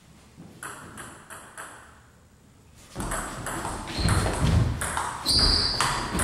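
Table tennis ball ticking a few times, then a fast rally from about three seconds in: the ball clicking off bats and table, with short high squeaks of shoes on the wooden floor near the end.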